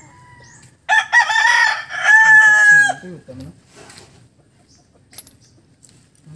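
A rooster crowing once, about a second in: a loud call of a few quick notes running into one long held note that drops at the end.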